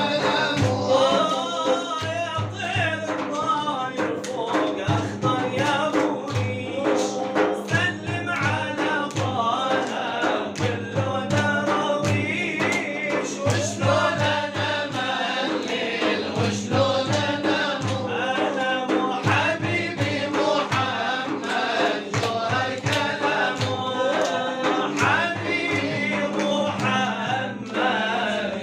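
Male voices singing Arabic devotional chant (inshad) together, over a steady drum beat.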